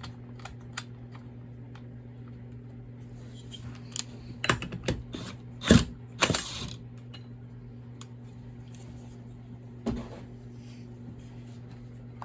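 Hand tools clicking and knocking against the metal parts of a Stihl MS291 chainsaw during work to remove its flywheel, with a cluster of sharper knocks about four to seven seconds in, over a steady low hum.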